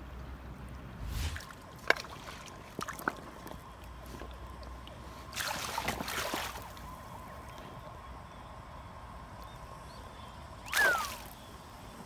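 Shallow river water running over stones, with a few sharp clicks about two and three seconds in, a sloshing splash lasting about a second midway, and a brief louder burst with a falling tone near the end.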